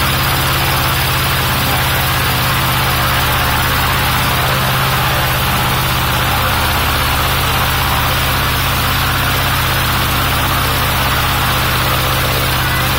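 Piston engine of a small single-engine light aircraft running steadily at idle during a ground run, with a loud, even low hum that does not change.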